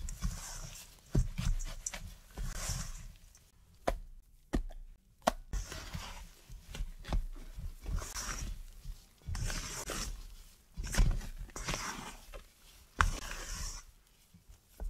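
Silicone spatula folding meringue and pistachio powder in a stainless steel bowl: repeated soft swishing, squelching strokes about once a second, with a few sharp knocks of the spatula against the bowl.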